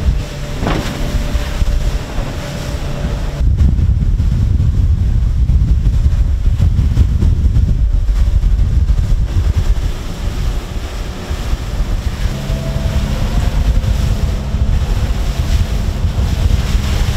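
Wind buffeting the microphone on a moving boat, over the steady drone of the boat's engine and water rushing past the hull in choppy seas. The wind noise jumps louder about three and a half seconds in and eases somewhat later on.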